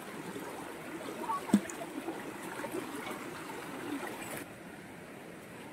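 Shallow stream running over rocks, a steady rush of water, with one sharp knock about a second and a half in. About four and a half seconds in the water sound turns quieter and duller.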